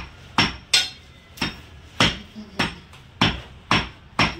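Butcher's cleaver chopping goat meat against a wooden tree-stump chopping block: about nine sharp chops, about two a second.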